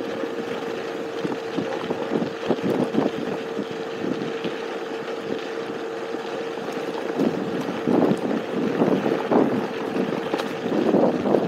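Electric scooter riding at steady speed on asphalt: a constant whine from the motor under rumbling wind buffeting on the microphone, which gusts louder a few times in the second half.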